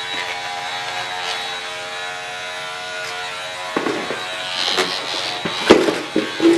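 Oscillating saw buzzing steadily, then from about four seconds in it bites into the mower housing, with irregular rasping and knocking as the blade chews out the cut-out.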